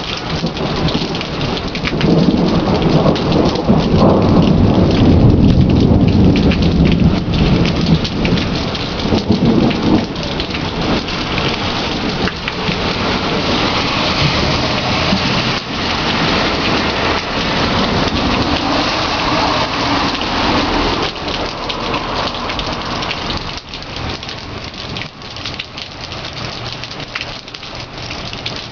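Thunderstorm: steady rain falling, with a long roll of thunder that builds about two seconds in and dies away by about ten seconds, and a fainter rumble later on.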